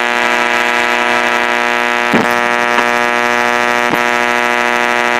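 1965 Mercury AM push-button car radio putting out a loud, steady buzz full of overtones between stations, with three short clicks in the middle.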